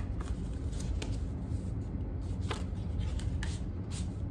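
Paper and card inserts of a music album being handled: rustling with a handful of short, sharp clicks and taps as the pieces are pulled apart and turned over, over a steady low hum.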